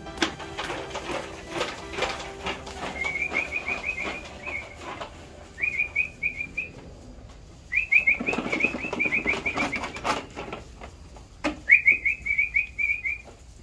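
A bird calling in four bursts of rapid high chirps, each a quick string of short falling notes at one pitch, with scattered knocks and clicks between them.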